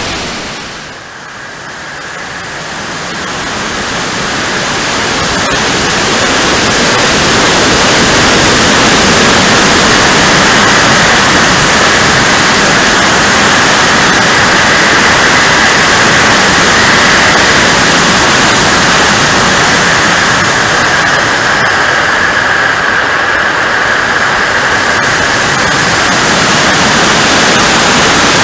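Loud, steady rush of air over the onboard camera of an RC model Rafale B jet in flight, mixed with its TJ74 turbine running. The noise dips at the start and builds up over the first few seconds, then holds steady with a constant high hum inside the rush.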